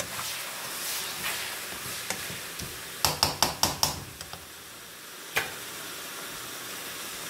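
Chicken pieces simmering in their own juice in a nonstick skillet, a steady low sizzle, while a spatula stirs and scrapes the pan. About three seconds in comes a quick run of about six scrapes and taps, and a little after five seconds a single sharp knock.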